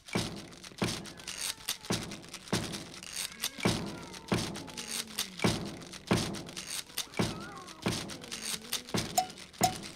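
Animated-film percussion: sharp knocks on a steady beat, a little under two a second, with lighter knocks between them. A low tone slides downward between about four and five and a half seconds in.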